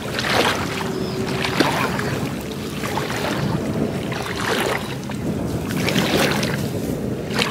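Shallow floodwater sloshing and splashing around people wading among rice stalks while they handle bamboo fish traps. The sound swells and eases unevenly every second or two.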